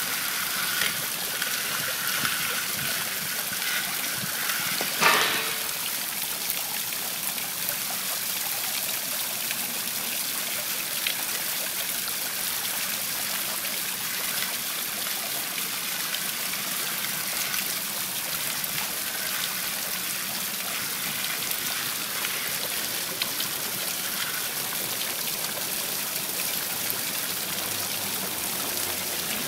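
Fountain water running and splashing steadily, with a brief louder sound about five seconds in.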